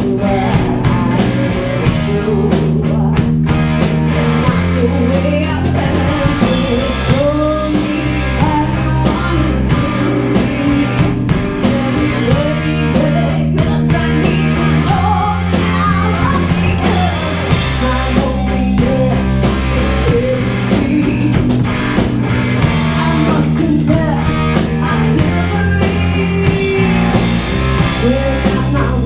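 Rock band playing live: drum kit, electric guitars and bass guitar keeping a steady beat, with a woman singing lead.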